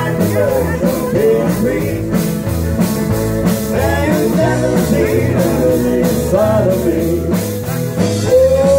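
Live rock band playing through a PA: electric guitar, bass guitar, keyboards and drum kit, with a steady beat.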